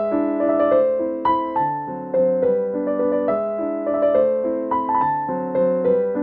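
Background music: a piano melody with gently struck notes.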